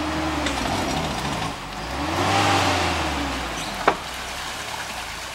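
Lada Niva's engine revving twice as the 4x4 pushes through a shallow stream, the pitch rising and falling each time, with water churning around the wheels during the second rev. A single sharp knock about four seconds in.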